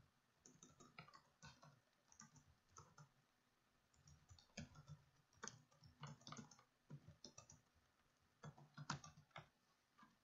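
Faint typing on a computer keyboard: quick keystroke clicks in three bursts, with short pauses between them.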